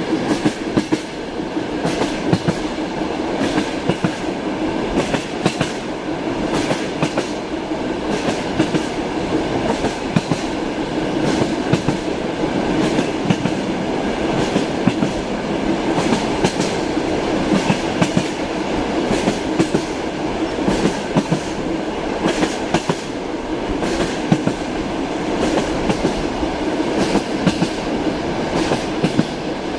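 Passenger train wheels clattering over the rail joints, heard from inside a compartment: repeated short clicks over the steady rumble of the moving carriage.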